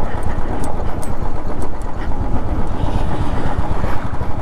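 Royal Enfield 350 single-cylinder motorcycle running, buried under a heavy, steady low rumble.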